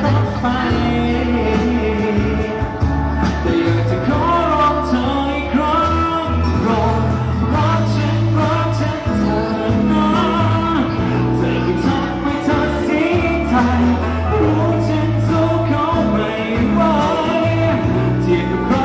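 A male pop singer singing live into a handheld microphone over amplified backing music with bass and drums.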